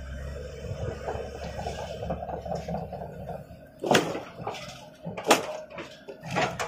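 Hydraulic excavator's diesel engine running with a low steady hum, then a few sharp knocks about four, five and six seconds in.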